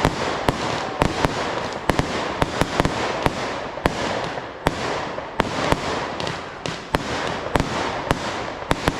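Fireworks display going off: a dense run of sharp bangs, several a second at uneven intervals, over continuous crackling.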